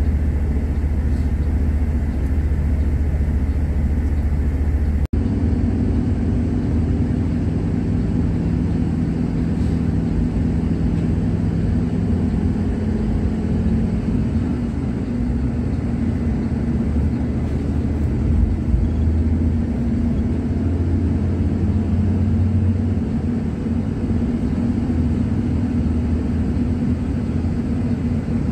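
Steady low engine drone and road rumble of a moving bus, heard from inside the cabin. The sound cuts out for an instant about five seconds in.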